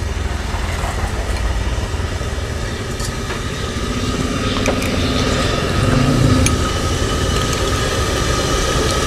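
Street traffic: a motor vehicle engine running steadily, a low rumble that grows a little louder about halfway through.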